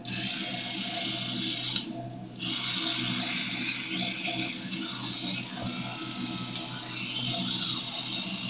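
Toothbrush scrubbing teeth, a steady scratchy rasp that pauses briefly about two seconds in, with a tap running.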